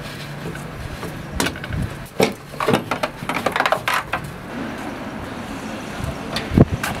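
Scattered sharp metallic knocks and clanks of tools and exhaust hardware as a car's diesel particulate filter is unbolted and lowered from underneath, over a steady low workshop hum. A few louder knocks come near the end.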